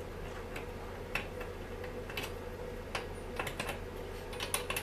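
Irregular light metallic clicks and taps of small parts and a hand tool against a chainsaw's body during reassembly of the clutch side, a few clustered near the end, over a steady low hum.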